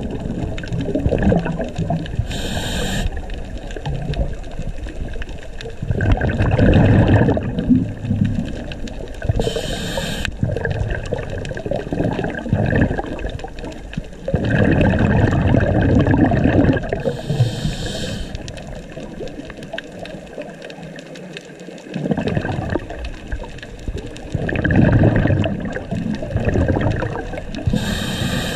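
Scuba diver breathing through a regulator underwater. Each breath is a short hiss as the diver inhales, followed a few seconds later by a longer, louder rush of exhaled bubbles. The cycle repeats slowly, about every seven to eight seconds.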